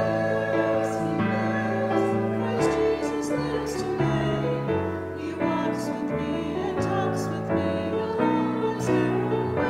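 Church congregation singing a hymn to piano accompaniment, in long held notes.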